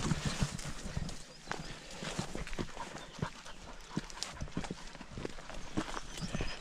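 Footsteps of a hiker walking over rough mountain ground: an irregular run of short crunches and knocks, several a second.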